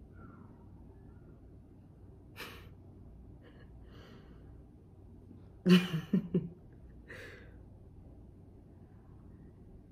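A woman's short laugh about six seconds in: a sharp burst of breath followed by three quick voiced pulses, with softer breaths before and after.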